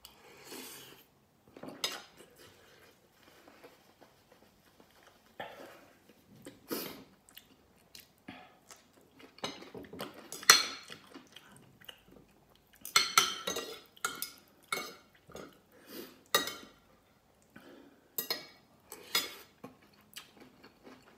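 Metal spoon and fork clinking and scraping on a ceramic plate and glass bowl while eating rice and soup: irregular sharp clinks, the loudest about ten seconds in and a quick run of them around thirteen seconds in.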